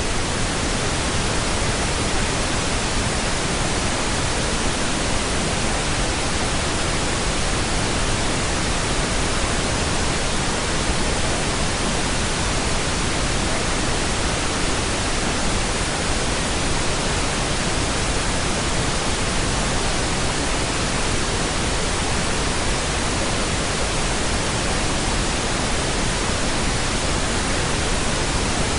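Steady pink noise: a constant, even hiss with no changes or breaks.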